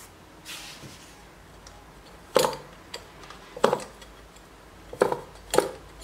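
A thin metal can and its wire crankshaft being handled, giving a soft rustle and then four sharp metallic clicks and knocks about a second apart.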